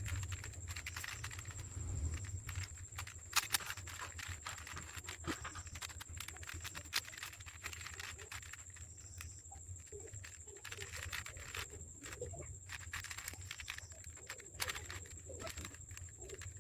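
Plastic 5x5x5 Rubik's cube being turned by hand: quick, irregular clicks and clatter of its layers, over a steady low hum.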